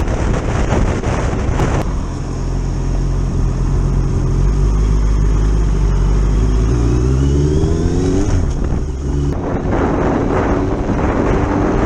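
Sport motorcycle ridden on the road, heard from on board: wind rush over the microphone with the engine running underneath. About seven seconds in, the engine note climbs as the bike accelerates. Heavy wind noise returns from about nine and a half seconds.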